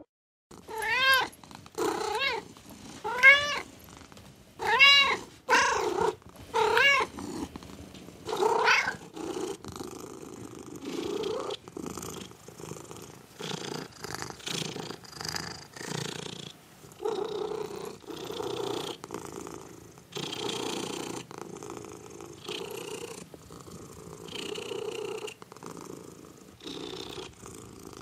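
Domestic cat meowing about seven times in the first nine seconds, each call rising then falling in pitch, then purring in a steady pulsing rhythm for the rest.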